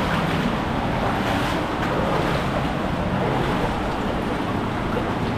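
Steady rushing of an underground river's flowing water.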